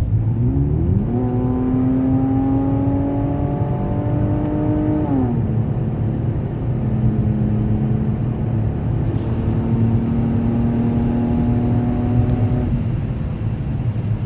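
Car engine and leaking exhaust heard from inside the cabin: a low rumble with a drone that rises in pitch as the car accelerates about a second in, drops off about five seconds in, then holds steady before easing near the end. The exhaust is loud from a blown-out muffler delete kit.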